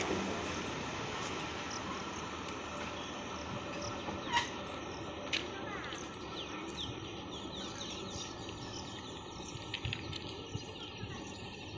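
EMU electric local train running away into the distance, its steady rumble slowly fading. Birds chirp over it from about four seconds in, more often near the end.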